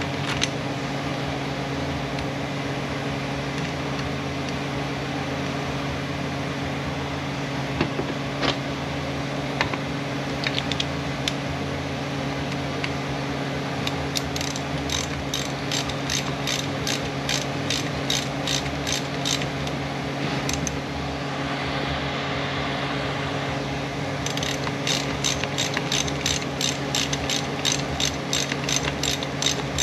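Hand ratchet with a T25 Torx bit clicking as screws are driven in, in two runs of about three clicks a second, the first about halfway in and the second near the end. A steady low hum sits underneath.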